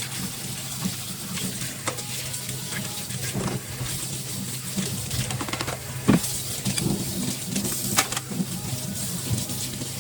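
Kitchen clean-up sounds: dishes and utensils clinking and knocking now and then, with scrubbing or rubbing noise over a steady low hum. The sharpest knocks come about six and eight seconds in.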